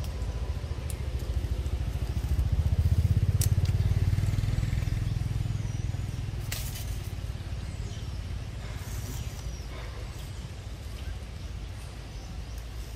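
Low rumble of a motor vehicle engine, swelling a couple of seconds in and slowly fading away, with a few faint clicks and high chirps above it.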